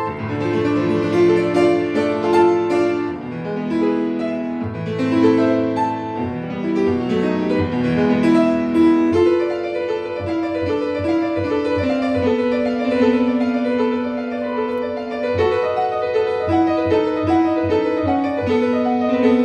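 Solo grand piano played with both hands: a continuous piece of many notes, with longer held notes under a moving upper line in its second half.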